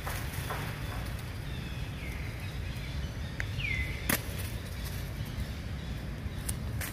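Forest ambience: a steady low background rumble with a few short, high chirps that slide downward in pitch, the clearest a little under four seconds in, and one sharp click just after it.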